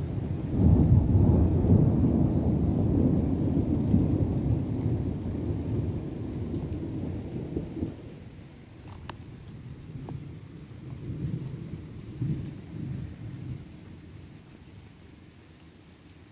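Thunder rumbling, loudest about a second in and dying away over several seconds, then a softer second roll of rumbles later, over steady rain.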